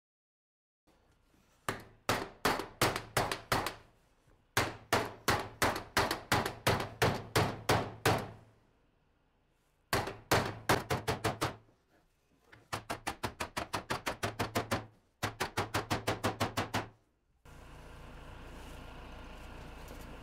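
Mallet blows on a sheet-metal roofing panel laid over a wooden forming edge, folding its end over for a cross seam. The blows come in five quick runs, about four to six a second, with short pauses between runs, followed by a steady low room hiss near the end.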